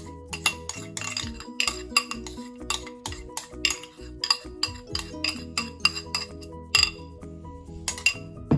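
Background music with a steady beat of light percussion over sustained chords.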